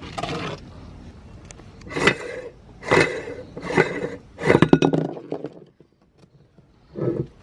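Meat grinder crushing crunchy cookies: a series of loud crunching and cracking bursts, falling quiet for a moment about five seconds in before another crunch near the end.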